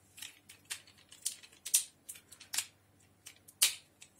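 Hard plastic parts of an Optimus Prime transforming toy clicking and knocking as it is handled and folded. There is a series of short, sharp clicks, about two a second, and the loudest comes a little past three and a half seconds in.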